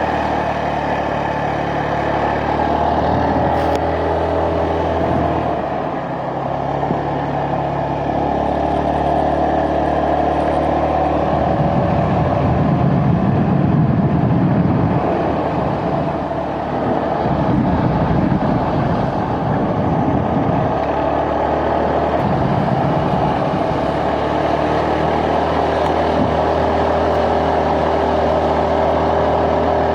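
Motor vehicle's engine running while being driven, a steady drone whose pitch shifts a few times, with stretches of heavier low rumble in the middle.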